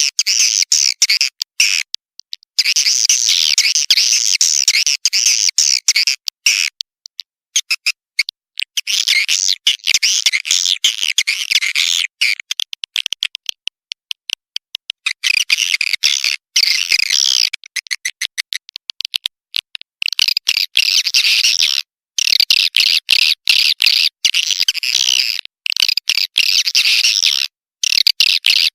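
Swiftlets twittering in dense, rapid high chirps, a swiftlet roosting-call recording of the kind played to draw the birds to roost. The chirping comes in runs of several seconds, cut by sudden silent breaks.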